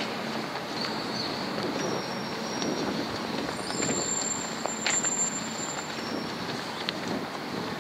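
Steady outdoor street ambience with a low traffic hum, a few faint clicks and some faint high-pitched tones in the middle.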